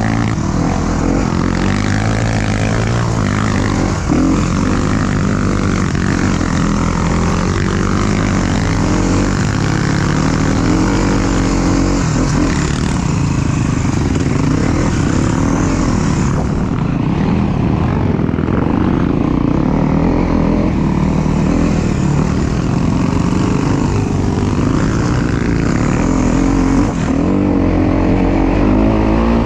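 Off-road motorcycle engine running continuously as the bike is ridden, its note rising and falling with the throttle.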